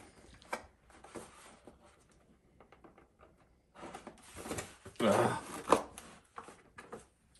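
Sealed plastic food packaging being handled and cut or torn open: faint clicks and rustles at first, then louder crinkling and rustling with a few sharper scrapes from about four seconds in.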